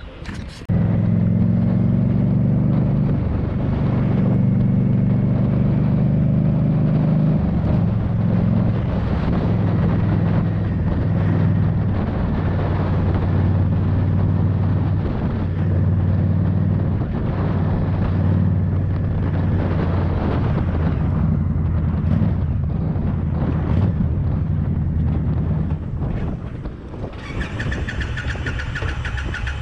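Indian Scout Bobber's V-twin motorcycle engine running. It comes in abruptly about a second in, holds a steady low note with small shifts in pitch, and drops away near the end, where a high, rapidly pulsing whine takes over.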